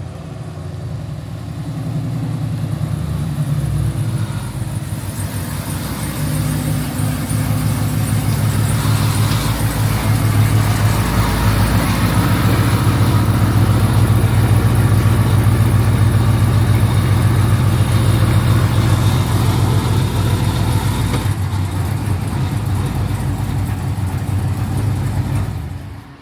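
Cammed Chevrolet Camaro V8 engine running, its sound building over the first ten seconds or so, then held loud and steady, and cutting off abruptly near the end.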